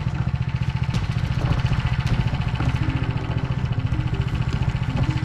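Engine of a Motor Sich walk-behind tractor running steadily at idle, with an even rapid pulsing.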